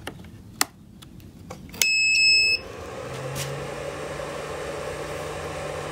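A sharp click, then about two seconds in a power inverter switches on with a single high electronic beep lasting under a second, then settles into a steady hum with fan noise as it runs a light bulb load.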